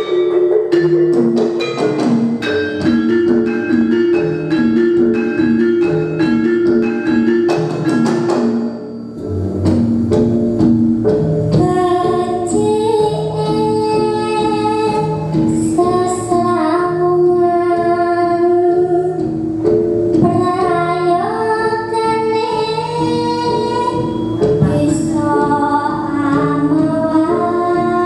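Javanese gamelan in pelog tuning playing a steady pulse of bronze metallophones and bonang kettle gongs, with kendang drum strokes. About ten seconds in, a girl's solo voice comes in and sings the melody over the ensemble.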